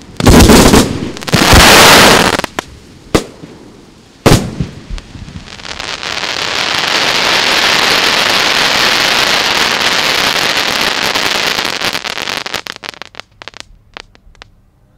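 Aerial firework shells bursting: two big booming bursts at the start and a few sharp single bangs, then a long dense crackle for several seconds that fades away into a few last scattered pops near the end.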